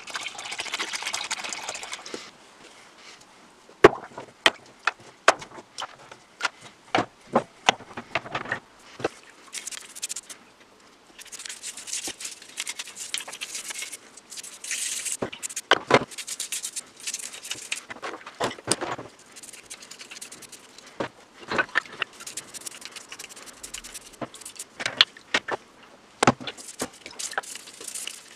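Heavy-duty degreaser poured from a jug into a plastic tub, then a run of sharp clicks and knocks as the old breast drill's metal parts are handled in the tub. For the rest, a brush scrubs the rusty gear and drill frame in the liquid, a scratchy scrubbing with splashes and knocks of metal against the tub.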